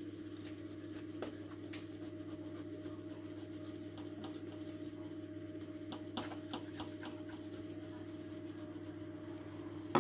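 Faint scraping and scattered light clicks of a knife working on a whole sea trout in a stainless-steel sink, over a steady low hum.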